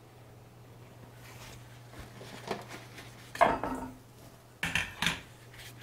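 Stainless steel kitchen bowl clattering and knocking against the benchtop as it is picked up, handled and set down. There are a few separate clanks, the loudest about three and a half seconds in and two more close together near the end.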